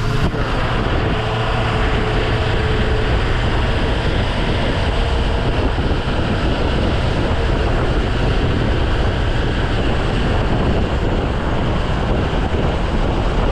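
Wind rushing steadily over the microphone of a moving plow truck, with engine and road noise underneath.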